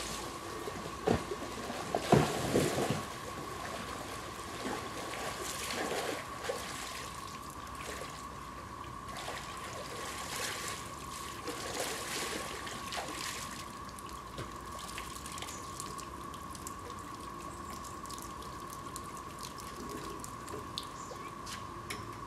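Water splashing and trickling as a person swims out through a lake to a diving platform. The splashes are loudest in the first few seconds, then thin out to occasional drips, over a steady high-pitched tone.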